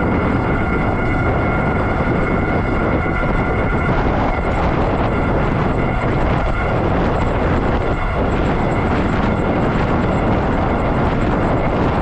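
Wind rushing over the microphone while riding an Ariel Rider D Class electric bike at speed, with a steady high whine running through the noise.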